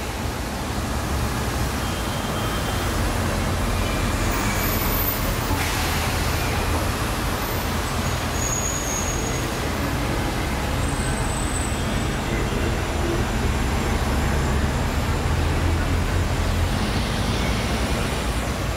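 Steady city street traffic noise: a continuous low rumble of passing road vehicles.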